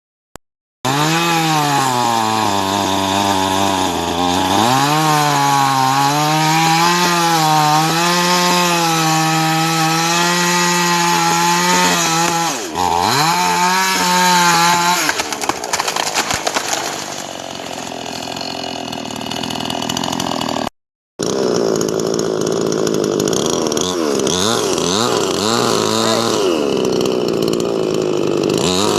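Chainsaw running hard, its pitch dipping and recovering as the chain loads up in the wood. It cuts out briefly about 21 seconds in, then runs on.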